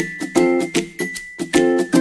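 Background music: an upbeat plucked-string tune with a steady beat.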